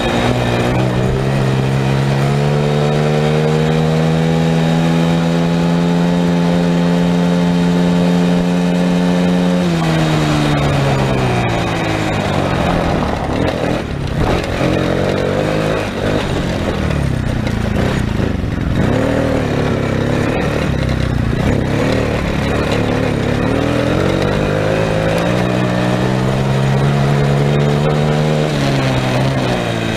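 Small engine of a child's ATV running under throttle while being ridden. Its pitch climbs and holds high for about the first ten seconds, then drops. Through the middle it wavers unevenly with rougher noise, and near the end it climbs and holds again.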